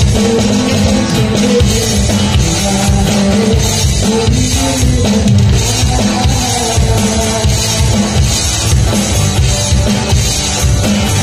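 Live band playing a Hindi song through PA speakers: a man singing into a microphone over strummed acoustic guitar and a drum kit keeping a steady beat.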